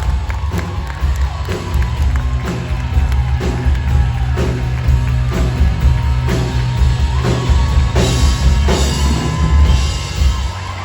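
Rock music with a steady drum beat and heavy bass over a hall's sound system, with an audience cheering and whooping along.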